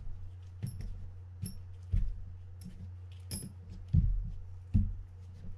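Metal drag washers and small reel parts clinking and tapping as they are handled and set down on the work mat: several light clicks, some with a short metallic ring, and a few duller knocks.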